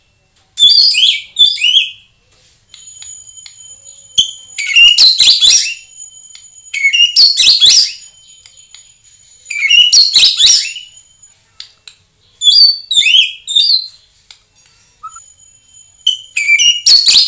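White-rumped shama singing loud phrases of rich whistled and chattering notes, one about every two to three seconds, with a thin, steady high whistle held between some of them.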